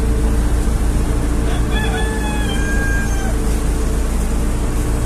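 Tugboat engine running with a steady low rumble while pushing a coal barge alongside a ship. About two seconds in, a single high, drawn-out call lasts about a second and a half.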